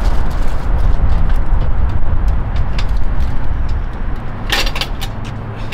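Loud low rumble throughout. About four and a half seconds in, a brief metallic clatter as the aluminium hand truck is wheeled up and brought to a stop.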